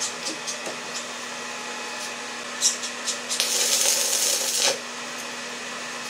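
Stick (arc) welding with a rod electrode on steel: a brief strike about two and a half seconds in, then the arc crackles and hisses for about a second and a half before it cuts off.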